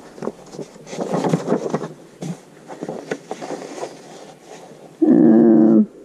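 Sheets of printer paper rustling and sliding as they are handled and lined up over a notebook. Near the end comes a louder steady pitched sound, held for just under a second.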